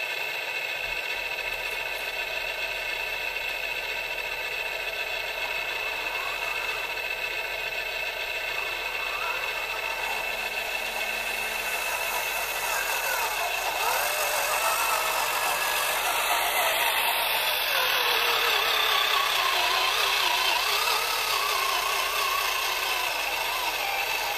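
Radio-controlled model dump truck's electric drive whining, rising and falling in pitch as it drives in, over a steady mechanical whine. It gets louder about halfway through.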